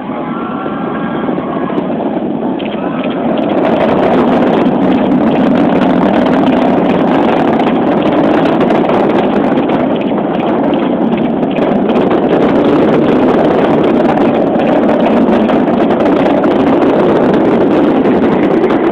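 Roar of the Atlas V rocket climbing away after liftoff, heard from miles off. It swells over the first few seconds, then holds as a steady rumble with crackling.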